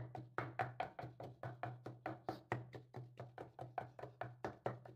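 Wooden pestle pounding peeled beans, pepper and onion in a mortar: quick, even knocks about five a second, with a steady low hum beneath.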